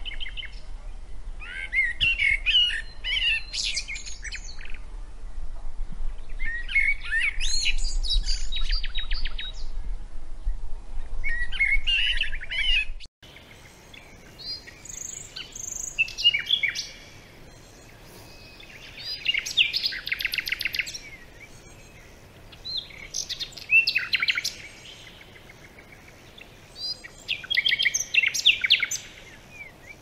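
Songbirds singing in short phrases of quick chirps and trills every few seconds. About 13 seconds in the sound cuts abruptly to a different recording: a low rumble underneath stops, and the phrases continue over a quieter background.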